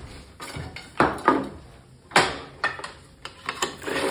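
A few sharp knocks and clatters of wood and tools being handled. The loudest come about a second in and again just past two seconds, with lighter taps after, as the piece of base molding is set down on the table saw's top.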